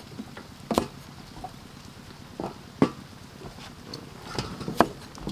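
Knife blade striking a thick wooden chopping block while cutting food: three sharp knocks about two seconds apart, with a few fainter taps between them.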